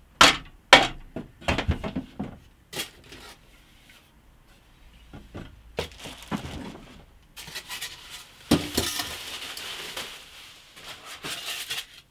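Hardwood workbench parts knocking against each other and the cardboard box as they are handled, with two sharp knocks right at the start. From about halfway on, plastic wrapping crinkles and rustles as it is pulled about inside the box.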